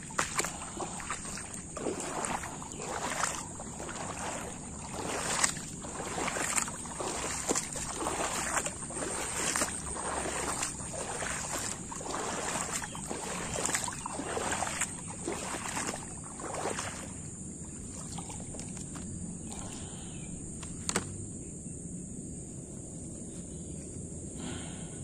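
Boots wading through shallow floodwater, a splashing slosh with each stride in a steady walking rhythm; the steps stop about two-thirds of the way through, leaving quiet apart from a single click.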